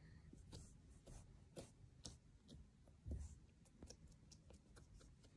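Faint, irregular clicks and soft taps of fingertips pressing and patting slime against the floor, a few each second, with a slightly louder soft thump about three seconds in.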